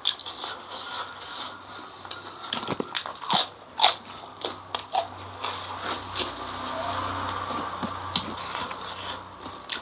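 A person chewing and crunching spicy chicken and fried noodles, with several sharp crackles, the loudest about three to four seconds in.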